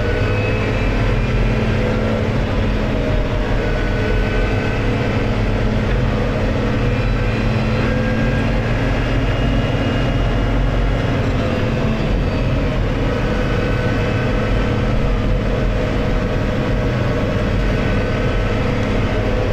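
New Holland tractor's diesel engine running steadily at road speed, heard from inside the cab as a constant low drone. Faint higher whines come and go above it.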